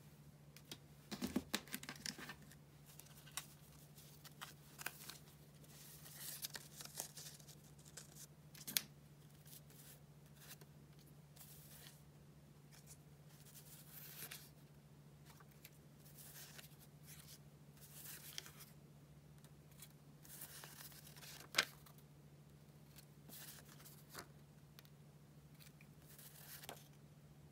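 Paper stickers, memo sheets and cardstock rustling and shuffling as they are handled and leafed through, in soft intermittent bursts. Several sharp clicks stand out, the loudest about 9 and 22 seconds in, over a faint steady low hum.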